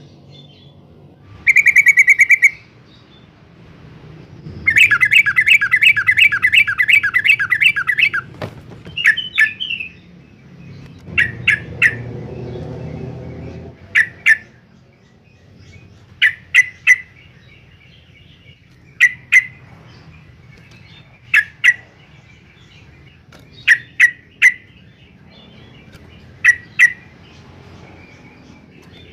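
Yellow-vented bulbul calling: a short held note, then about three seconds of fast rapid-fire notes, then short sharp notes in twos and threes repeated every two to three seconds. A low droning sound sits under the calls for a few seconds near the middle.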